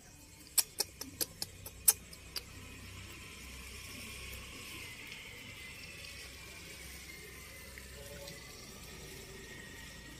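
A quick run of about seven sharp clicks in the first two seconds or so, then a steady hiss of running water, like a tap filling a sink.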